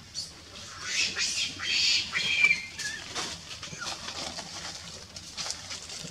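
A string of short, high-pitched animal squeaks and chirps, loudest around two seconds in, then thinning to light clicks and rustling.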